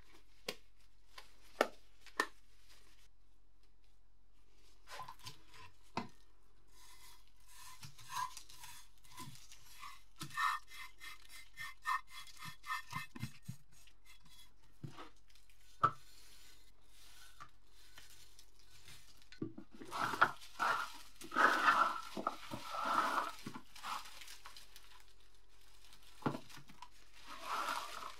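A hand tool scraping and chipping hardened soil and rust crust off a buried, corroded antique iron in short, repeated strokes, with small clicks of loosened crumbs. The heaviest scraping and crunching comes about two-thirds of the way in.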